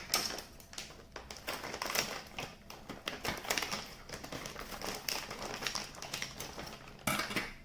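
Crispy Nova cheddar multigrain chips being crunched while eaten, a run of irregular sharp crunches close to the microphone.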